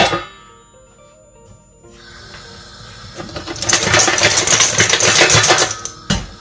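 A metal lid clanks down onto a large stainless steel cooking pot. A few seconds later comes a loud, dense rattling and scraping as the lidded pot is moved with oven mitts, ending in a sharp clunk as it is set down.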